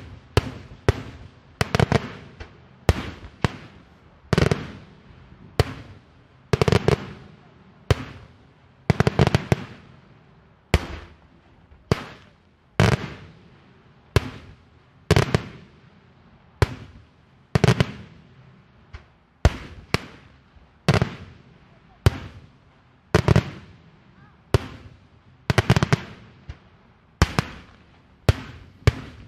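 Daytime fireworks: aerial shells bursting overhead in a steady run of sharp bangs, roughly one to two a second, some coming as quick double or triple cracks, each dying away with a short echo.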